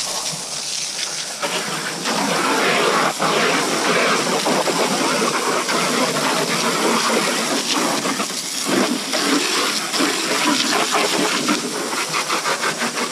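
Water from a garden hose spraying onto a muddy ATV's frame: a steady spray with splatter off the metal and mud, getting louder about a second and a half in.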